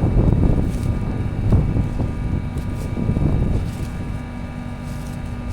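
Manitou skid loader running and working, its engine giving a steady low rumble that eases off a little near the end.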